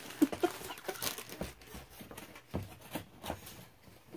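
A cardboard kit box being slid out of its paper sleeve and handled on a wooden table: rustling, scattered sharp taps and a few short squeaks, the loudest tap just after the start.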